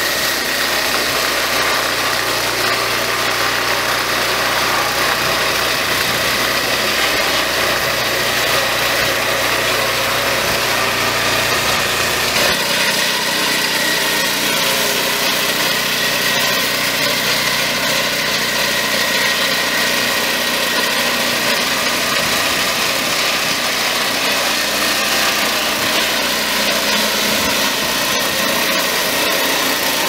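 Engine-driven swing-blade portable sawmill running steadily, its circular blade cutting through a log. About twelve seconds in the sound shifts, with less low rumble.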